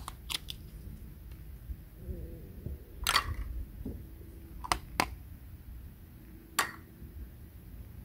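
Plastic toy fruit pieces and a toy plastic knife clicking and knocking together as the pieces are cut and pulled apart: about six short, sharp clicks, with one slightly longer scraping sound about three seconds in.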